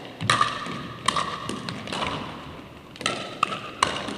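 Pickleball rally: the hollow plastic ball being struck by paddles and bouncing on a hardwood floor, a string of sharp pops at irregular intervals, each with a short ring and echo in the gym.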